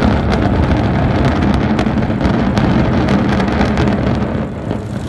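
Concrete high-rise apartment tower collapsing in an explosive implosion demolition: a deep, continuous rumble with dense crackling, easing off a little near the end.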